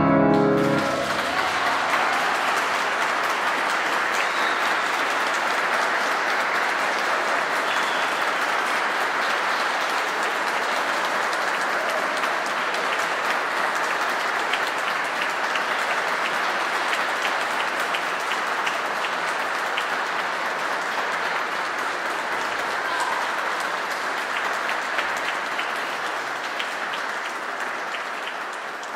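The last chord of an upright piano dies away as an audience breaks into applause. The clapping goes on steadily and thins a little near the end.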